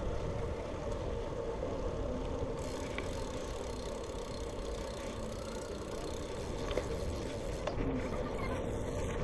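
Steady low rumble of wind on a GoPro microphone mixed with tyre and road noise from a road bike rolling over asphalt, with a few faint ticks.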